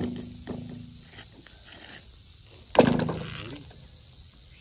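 Two hollow knocks from a white PVC pipe being shifted on concrete, each with a brief low ringing tone; the second, nearly three seconds in, is the louder. Crickets chirring steadily and faintly behind.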